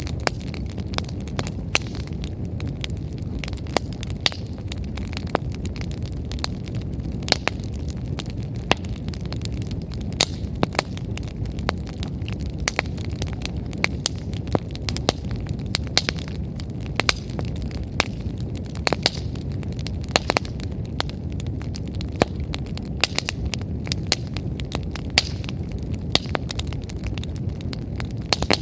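Wood fire burning: frequent irregular sharp crackles and pops from the firewood over a steady low rumble of flames.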